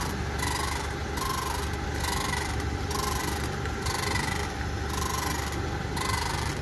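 A rhythmic rubbing squeak from a 2014 Honda CR-V, repeating about twice a second over a steady low hum. It sounds like a brake noise but is not one.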